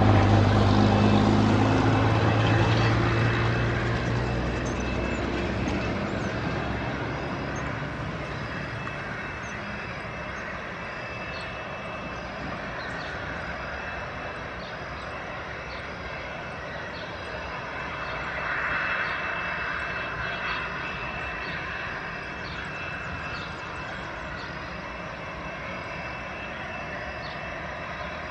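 Airbus A319 jet engines at idle as the airliner taxis in. A loud low rumble fades over the first several seconds, leaving a steady high-pitched whine.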